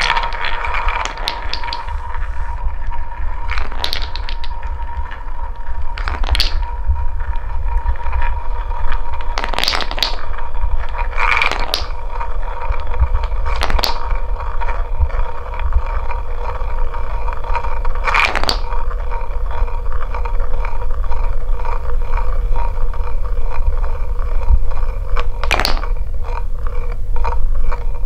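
Wooden balls rolling round a wooden funnel bowl, a steady rumble, with a sharp wooden clack every few seconds as one drops through the centre hole.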